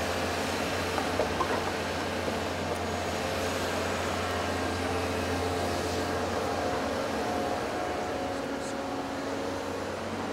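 Caterpillar 320C hydraulic excavator's diesel engine running with a steady low hum as it swings its arm and bucket. There are a few light knocks about a second in, and the low hum eases a little in the last few seconds.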